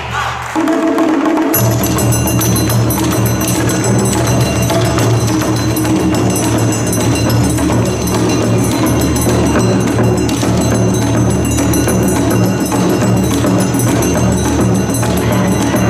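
Loud yosakoi dance music with percussion. The bass drops out briefly near the start, then the full music comes back in.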